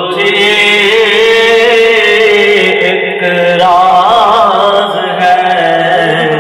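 A man's solo voice chanting an Urdu naat, with long held notes that waver in ornamented runs, over a steady low drone.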